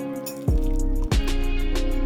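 Background music with a steady beat and a deep bass line under sustained tones.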